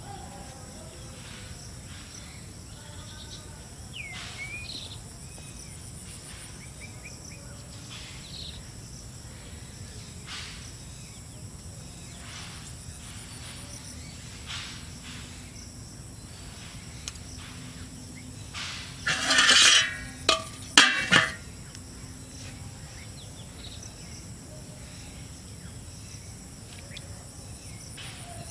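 Outdoor ambience with a steady insect hum and a few faint bird chirps. About two-thirds of the way in comes a brief loud rushing noise with a couple of sharp knocks, lasting about two seconds.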